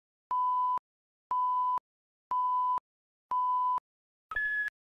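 Countdown leader beeps on a commercial's slate: four identical half-second steady beeps, one a second, then a shorter, higher-pitched beep near the end, counting down to the start of the spot.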